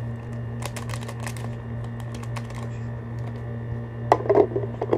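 Light ticks and rustles of a stevia sweetener sachet being shaken into a kettle, with louder handling knocks about four seconds in, over a steady low hum.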